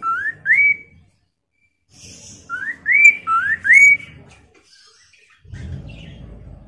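Chestnut-capped laughingthrush (poksay mandarin) calling: loud, short, upward-slurred whistles, two in quick succession and then a run of four after a pause. A low rumble comes in near the end.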